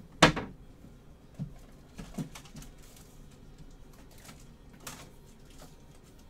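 A sharp click about a quarter-second in, then a few lighter knocks and taps: trading cards and card boxes being handled and set down on a tabletop.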